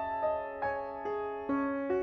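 Background piano music: single notes struck about two to three times a second, each ringing on as the next begins.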